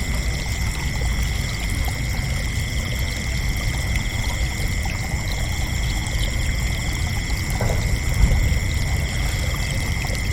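Crickets trilling in a continuous, unbroken high-pitched chorus over a steady low rumble.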